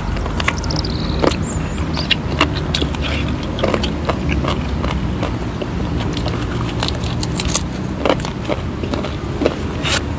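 Close-miked eating sounds: chewing and biting grilled chicken by hand, with many short wet clicks and smacks scattered throughout, over a steady low background rumble.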